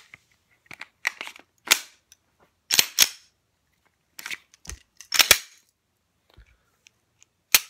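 Sharp metallic clicks and clacks from a freshly reassembled Gen 4 Glock 17 pistol as it is worked by hand, about ten irregularly spaced snaps of its parts.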